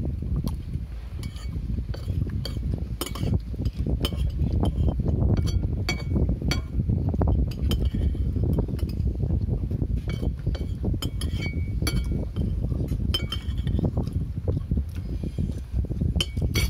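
Metal spoons clinking and scraping on plates as rice is eaten, in many sharp, irregular clinks. A steady low rumble runs underneath.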